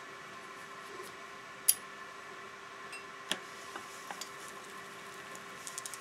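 Faint scattered clicks and ticks from a bicycle's rear cassette and drivetrain being turned while a thick pipe cleaner is drawn between the cogs to clean them, with a quick run of ticking near the end.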